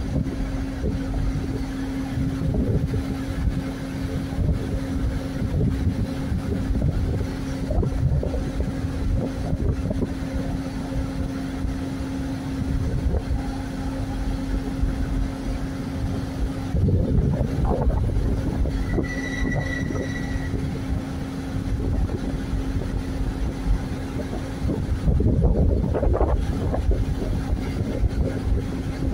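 Mobile crane diesel engines running steadily with a constant hum, under a low, uneven rumble of wind on the microphone. A short high-pitched tone sounds briefly about two-thirds of the way through.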